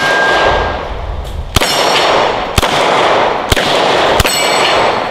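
A Canik TP9SFx 9mm pistol fired in a slow string of shots, roughly one a second, each crack followed by a short echo. Steel targets ring after some of the hits.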